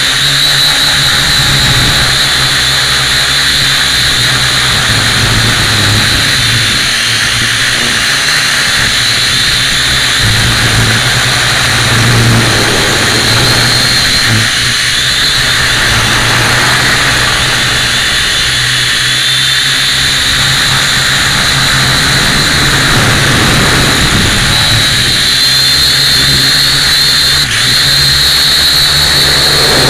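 Syma X1 quadcopter's small electric motors and propellers whining steadily, heard close up through its onboard camera's microphone, the pitch wavering a little as the throttle changes.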